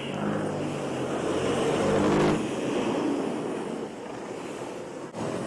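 MotorStar Z200R motorcycle engine pulling away, running at a steady pitch for about two seconds, then dropping off abruptly and leaving a steady rushing noise of wind and road.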